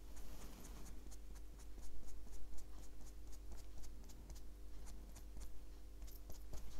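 Fingertips picking and rubbing at the edge of a paper tag, lifting off a thin acetate stencil mask: faint scratchy rustles and many small ticks.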